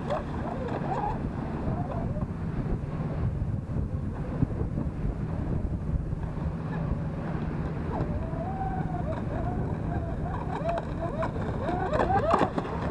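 Electric motors of a Proboat Zelos 36 twin RC catamaran whining, the pitch wavering and swooping as the boat hops over the chop, with wind on the microphone and a steady wash of water. The whine is loudest near the start and again near the end as the boat runs close by.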